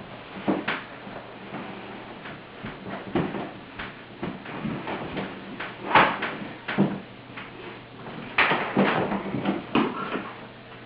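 A series of irregular knocks and clatters over a faint steady hum, the loudest about six seconds in, with a cluster of knocks near the end.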